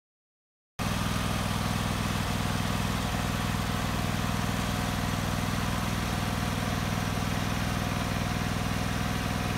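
John Deere X300 lawn tractor's 17 hp Kawasaki V-twin engine running steadily, cutting in abruptly about a second in.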